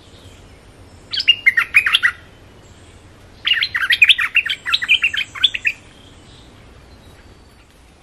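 A bulbul singing two phrases of rapid, bubbling notes: a short one about a second in, then a longer one of about two seconds.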